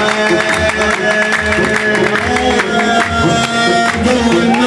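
Instrumental Gulf wedding-band music with no singing: long held melody notes over a steady, regular drum beat.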